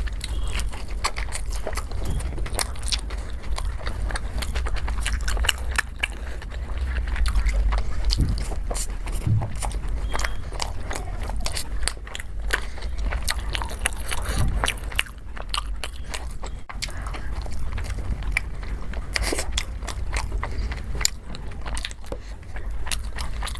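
Close-miked eating: a person biting and chewing food with many small irregular mouth clicks and smacks, over a low steady hum.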